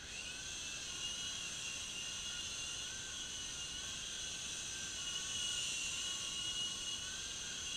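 Small electric U13A remote-control helicopter spinning up at the start, then running with a steady high-pitched whine of motors and rotors that rises and dips slightly in pitch as the throttle is worked.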